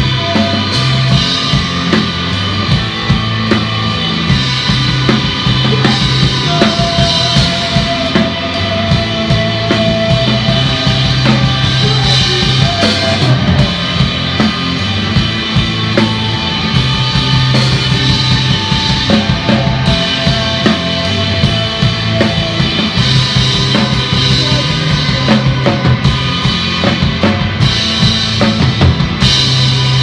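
Loud rock music with a steady drum-kit beat over a bass line.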